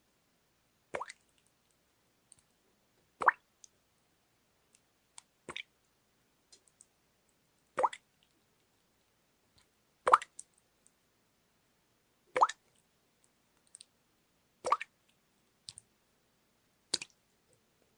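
Water dripping: single drops landing at an even pace, about one every two and a quarter seconds, eight in all, with a few fainter drips between.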